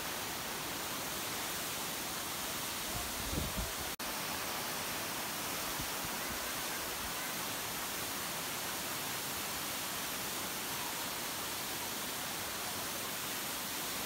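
Steady, even rush of a tall mountain waterfall heard close up, with a brief break about four seconds in.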